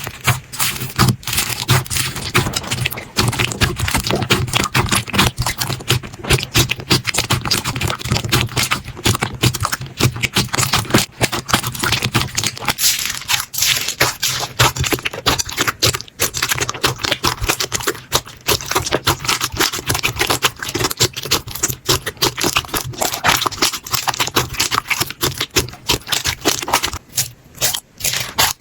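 Slime being squeezed, poked and stretched by hands close to the microphone, giving a dense, rapid run of crackles, clicks and small pops.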